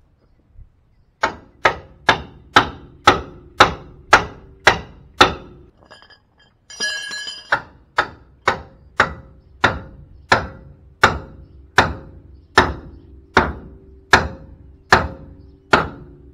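Steel hammer blows on the steering knuckle of a 1998 Chevy C1500's front suspension, driving the upper ball joint's stud loose. About two blows a second in two long runs, with a short metallic ringing clatter between them; the later blows leave the metal ringing.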